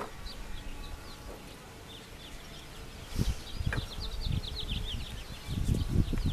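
Honeybees buzzing around an opened hive box while frames are worked by gloved hands. From about halfway on there are low, irregular rumbling knocks, and a rapid run of high chirps.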